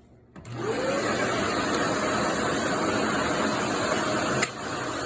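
Vacuum cleaner switched on about half a second in: its motor spins up with a rising whine, then runs steadily. Near the end there is a sharp click, and it keeps running a little quieter.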